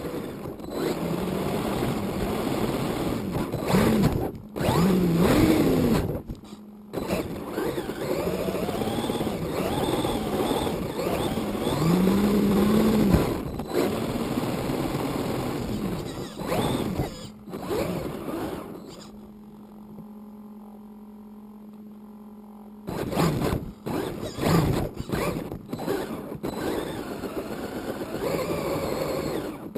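A 1:10-scale RC car's motor, its pitch repeatedly rising and falling as the car speeds up and slows, with knocks and tyre noise as it runs over paving stones. For a few seconds past the middle it stops, leaving only a faint steady hum, then it starts pulling away again.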